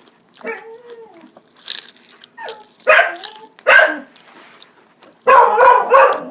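A dog whining and barking: two sharp barks about three seconds in, then a quick run of barks near the end.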